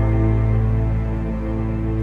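Background music: sustained, dark low tones.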